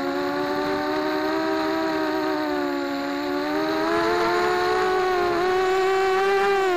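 FPV racing quadcopter's electric motors and propellers whining steadily, heard close up from the craft itself. The pitch drifts with the throttle, rising a little after the middle and dipping near the end.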